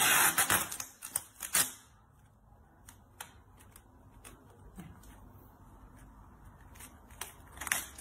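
Packing tape rasping as it is pulled off the roll over a cardboard box, loudest in the first second and again briefly at about a second and a half. After that come scattered light clicks and rustles of the tape roll and cardboard being handled.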